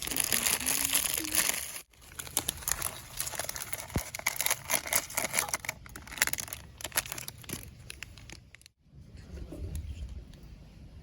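Plastic food wrapper crinkling as it is handled and torn open. The crinkling is densest in the first two seconds, then carries on as lighter crackling that thins out near the end.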